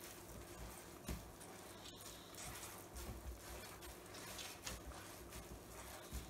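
Faint wet sounds of a cotton towel full of hot paneer curds being squeezed by hand in a steel colander, with whey pressed out and dripping, in small irregular bursts.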